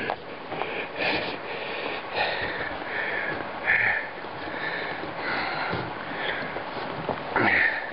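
A man breathing hard in short, noisy puffs, about one a second, from the effort of moving a loaded canoe down a steep portage trail.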